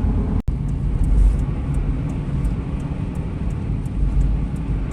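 Steady low rumble of road and engine noise from a Toyota 4Runner driving at highway speed, heard from inside the cabin, with a momentary cut-out about half a second in.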